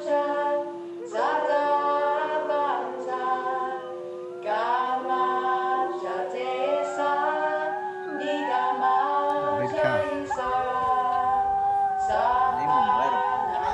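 A cappella choral singing: several voices hold chords over one long steady lower note, with a new chord starting every three to four seconds and some sliding pitches near the end.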